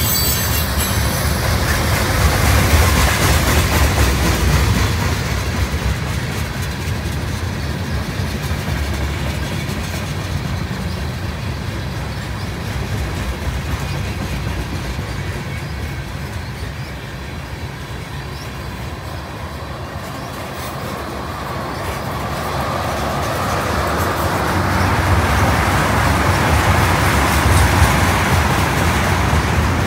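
Loaded freight tank cars rolling past on jointed track: a steady rumble of steel wheels on rail with clatter. It eases off in the middle and grows louder again toward the end.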